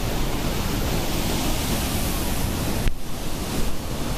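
Floodwater pouring through a dam spillway's open gates and churning in the tailrace: a dense, steady rush of water. It breaks off for an instant about three seconds in.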